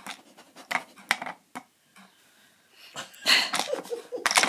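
Hard plastic tubes of a dog puzzle toy knocking in their frame as a husky noses them: a few sharp clicks, a short pause, then a longer clattering rattle near the end.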